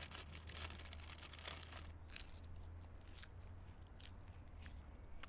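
A person chewing with loud, close-up crunching: a dense run of crunches for about the first two seconds, then a few separate crunches.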